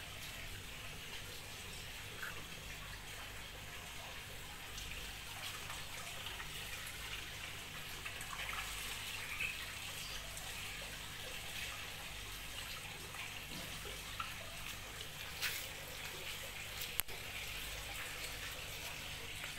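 Steady hiss of rain falling, with a few sharp ticks.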